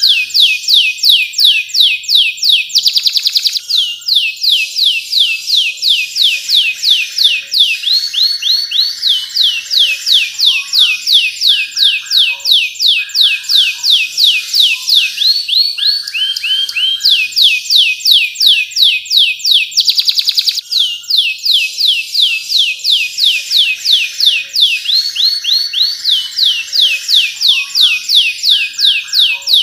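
Domestic canary singing a long, loud song: rapid runs of short downward-slurred notes, about four a second, broken by brief rolls and softer chattering phrases.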